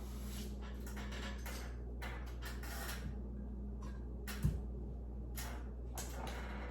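Short rustling and scraping sounds of hands handling a light fixture's wires and parts, with one dull thump about four and a half seconds in, over a steady low hum.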